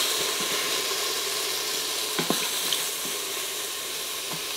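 Quartered mushrooms sizzling steadily in hot oil in an Instant Pot on sauté, their released juices hitting the hot bottom of the pot, with a few light clicks of a utensil against the pot as they are stirred and lifted out.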